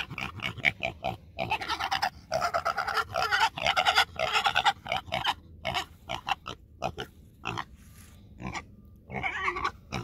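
Piglet squealing and grunting in a rapid run of short calls, busiest in the first half and thinning out toward the end. The piglet is complaining and unhappy.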